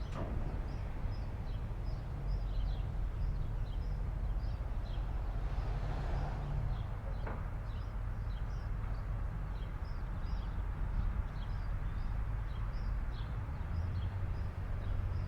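Diesel locomotives of a coal train running with a steady low rumble, while a small bird chirps over and over. There is a faint knock about seven seconds in.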